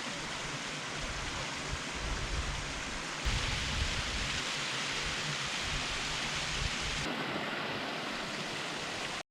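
Steady rushing water of a fell beck near a waterfall, with wind buffeting the microphone underneath. The rushing steps up abruptly about three seconds in.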